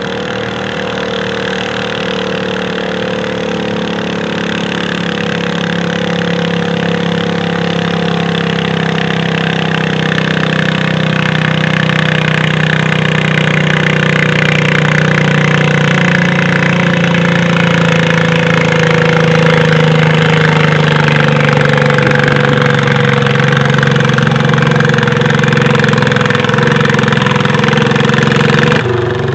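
Modified garden pulling tractor's engine running hard at steady revs as it drags a weight-transfer sled, growing gradually louder as it comes closer. It cuts off abruptly near the end.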